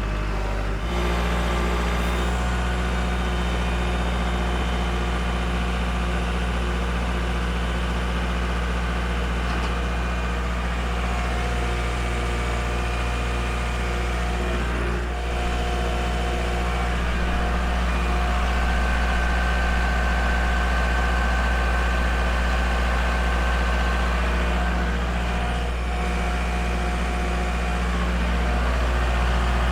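Engine idling steadily, its low, even note shifting slightly about a second in and then holding.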